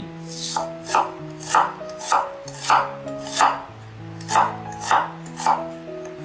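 A kitchen knife slicing a red onion against a wooden cutting board, crisp cuts about two a second with a brief pause midway. Soft background music plays underneath.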